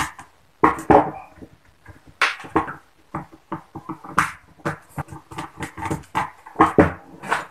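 Screwdriver backing out the screws of a plastic electric drill housing, with the drill body handled: irregular short clicks and scrapes, a few with a brief squeaky edge.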